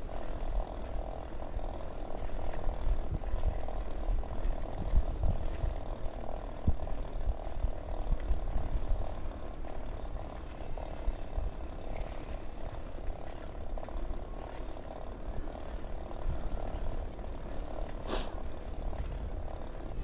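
Bicycle rolling along an asphalt path, with wind rumbling on the microphone and a steady, fluttering mid-pitched drone. There is a single sharp click near the end.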